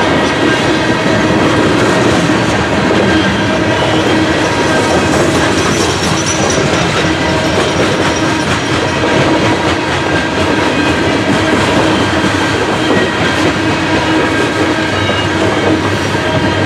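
Coal hopper cars of a CSX freight train rolling past steadily at close range.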